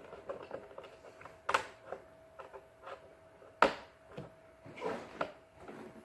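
Hard plastic toy pieces of a My Little Pony Pirate Airship being handled and clicked into place: two sharp clacks about two seconds apart, with lighter clicks and rattles of plastic between them.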